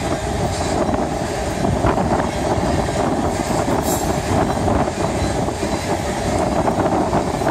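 A long freight train's open-top hopper cars rolling past: a steady rumble and rattle of steel wheels on the rails, with a few short clicks.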